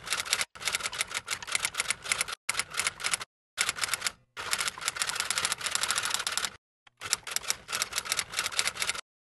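Typewriter keystroke sound effect: fast runs of key clicks with short breaks between lines, stopping near the end.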